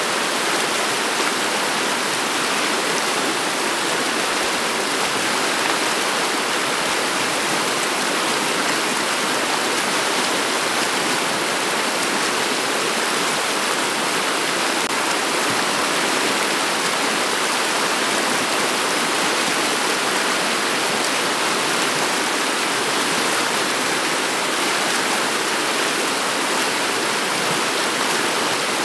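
Shallow, clear river water rippling and babbling over a bed of cobbles, a steady rushing with no changes.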